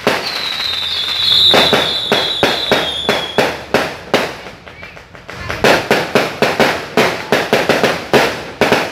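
Fireworks going off in a rapid series of sharp bangs and crackles, with a high whistle falling slowly in pitch over the first three and a half seconds. The bangs thin out briefly around the middle, then come fast again.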